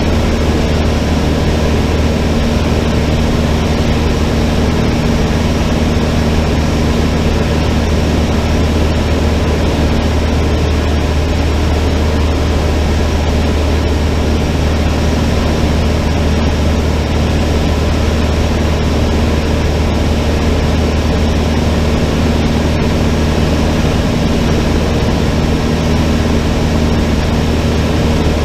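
Cessna 152's four-cylinder Lycoming O-235 engine and propeller running at steady power in flight: a loud, even drone with no change in pitch.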